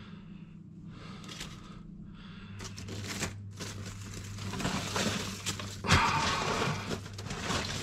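Ice chunks crunching and clattering as a hand digs through a box of iced fish, in several scraping bursts, the loudest about six seconds in.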